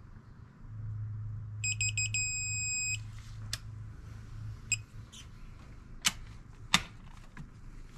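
Digital torque wrench beeping: three quick beeps, then a steady beep about a second long as the head bolt reaches its angle target on the 45-degree final pass. Then a few sharp metallic clicks as the ratchet and socket are moved onto the next bolt.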